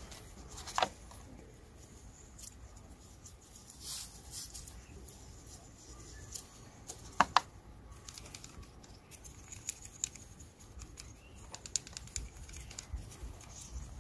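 Faint, intermittent scrubbing and scraping of a small brush against the metal of a soot-blocked EGR valve, with scattered light clicks and taps as the part is turned in the hands. The loudest is a pair of sharp clicks about seven seconds in.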